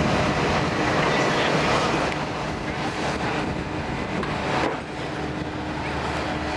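Wind buffeting the microphone over a steady rumbling din, easing a little about four and a half seconds in.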